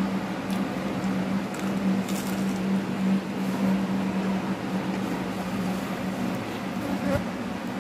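Steady machine hum, like a fan or appliance, with a low droning tone that weakens after about four and a half seconds. A few faint clicks sit on top of it.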